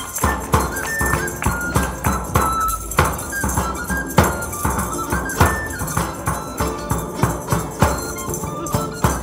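Live medieval folk music. A frame drum and jingles keep a steady beat of about two strokes a second, a high pipe carries the melody, and a plucked lute-type string instrument accompanies.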